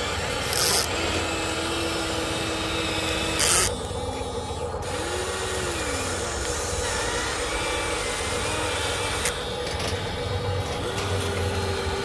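Huina 1593 remote-control excavator working: its small electric motors whine in short pitched tones that rise and fall as the boom, arm and bucket move, over the metal bucket scraping and rasping through sand and gravel. Two loud short scrapes come about half a second in and about three and a half seconds in.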